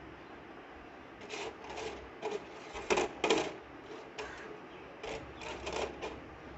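Steel oil-control ring being worked by hand into the groove of an aluminium 125 cc motorcycle piston: a run of short metallic scrapes and clicks, the two loudest about three seconds in.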